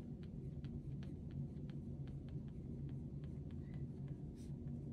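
Pen writing by hand on planner paper: a run of faint, quick scratches and small taps as the letters are formed, over a low steady hum.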